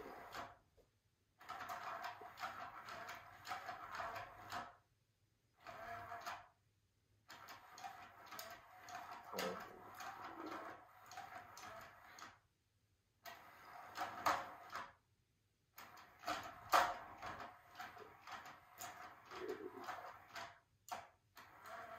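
Small motor of an electronic cat toy whirring, with short clicks and taps as kittens bat at it. The sound cuts off abruptly several times.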